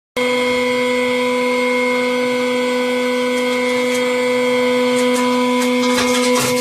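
Hydraulic press running with a steady, even hum from its pump motor, with a few sharp clicks near the end.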